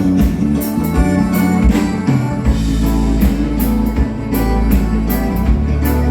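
Band playing a xote, a Brazilian gaúcho dance rhythm, with drums and cymbals keeping a steady beat over a sustained bass line and melody instruments.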